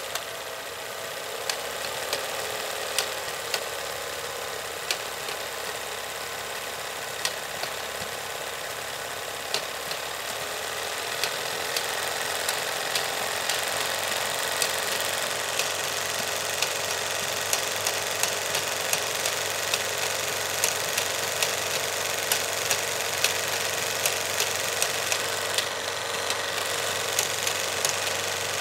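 Film projector running: a steady mechanical whirr with sharp clicks scattered through it, about one or two a second. It is thin, with almost no bass.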